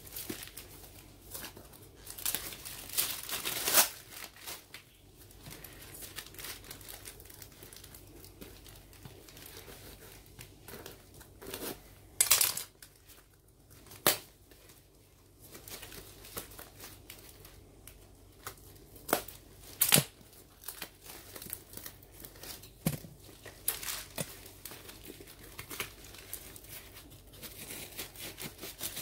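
Plastic mailing bag and packing tape being torn and peeled off a cardboard parcel by hand, with crinkling plastic and a handful of short, loud rips.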